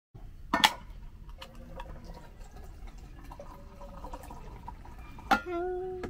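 Drinkware handled on a camp table, with a drink being poured: two sharp knocks, about half a second in and again near the end, with liquid trickling between and a short ringing tone after the second knock.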